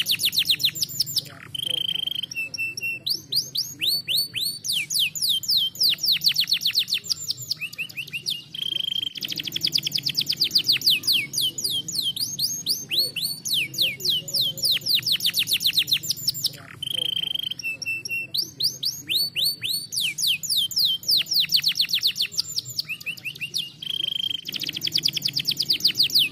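Domestic canary singing: long, fast trills of rapid downward-sweeping notes, broken every several seconds by a short steady whistled note.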